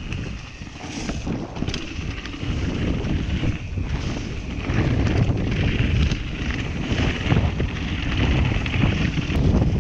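Wind buffeting the microphone of a camera on a mountain bike riding downhill, with the rumble of the tyres and a few knocks from the bike. It gets louder about halfway through.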